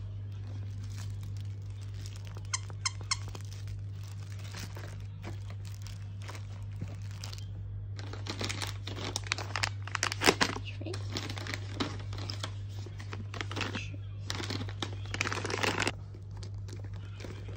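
Handling noise: a few small clicks about three seconds in, then bursts of rustling and crinkling from about eight seconds in as fabric and a plastic document folder are handled, over a steady low hum.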